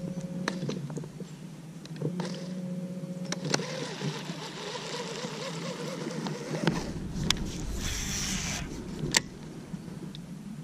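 Steady low hum of a jon boat's electric trolling motor, with a higher whine cutting in and out twice early on as it is switched on and off. Sharp clicks of a baitcasting reel come through, and a brief rush of noise near the end.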